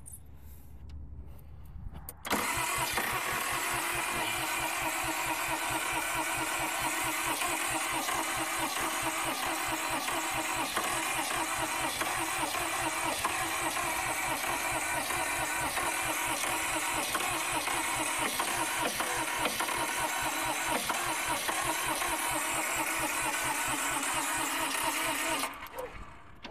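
Massey Ferguson 1010 diesel engine cranking on its starter with starting fluid in the intake, turning over in steady, even compression pulses and trying to fire without catching. The cranking begins suddenly about two seconds in and stops shortly before the end.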